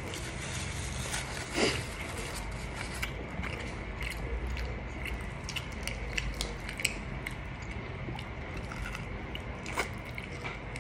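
Close-up eating sounds: a fried chicken wing being torn apart by hand and bitten, with a run of small crackling crunches and chewing, and one louder crunch about two seconds in.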